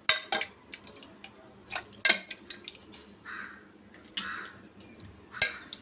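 Soup being ladled into a bowl: short splashing pours and drips of liquid, with several sharp clinks of the ladle against the pot and bowl.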